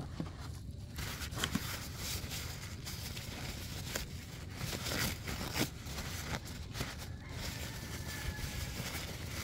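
Crumpled paper wrapping crinkling and rustling as it is handled, with many small irregular crackles, starting about a second in.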